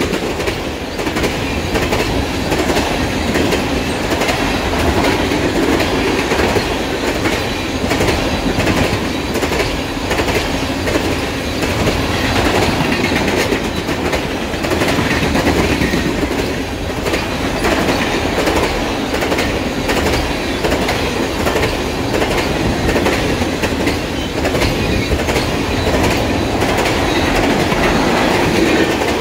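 Freight train of tank cars rolling past on the rails: a steady, loud rumble of steel wheels with a continuous clatter of wheels over rail joints.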